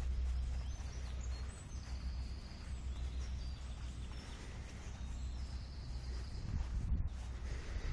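Outdoor background noise: a steady low rumble with faint, high bird calls now and then.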